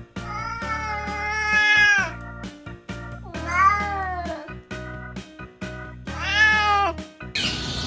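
Domestic cat meowing three times, drawn-out calls that rise and fall in pitch, the first the longest, over background music with a steady beat. Shortly before the end a rush of noise starts.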